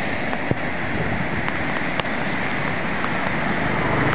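Muddy floodwater rushing and churning, a steady rush with a few faint clicks of splashing.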